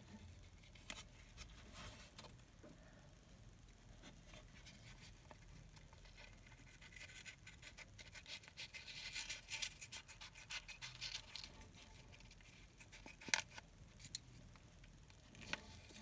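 Small scissors snipping through the leathery shell of a ball python egg, with the shell rustling in the fingers: faint crackling snips, busiest in the middle, then two sharper clicks near the end.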